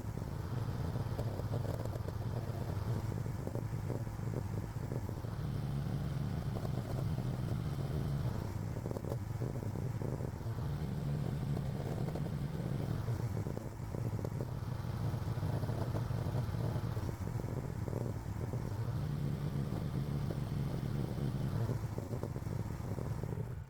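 AGT LH12R mini excavator's engine running steadily under work, its sound rising and falling in a regular cycle about every four to five seconds as it digs and loads dirt.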